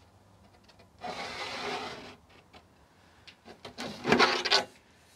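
A marker pen drawn along the edge of a steel square across a painted board: a scratchy rubbing stroke about a second in lasting about a second, a few light ticks, then a louder, shorter scrape near the end.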